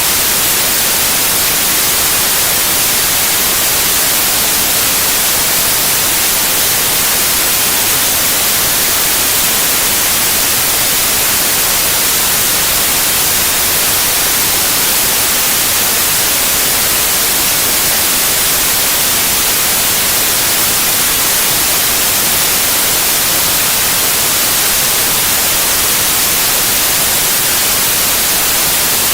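White noise: a steady, loud, even hiss that stays unchanged throughout.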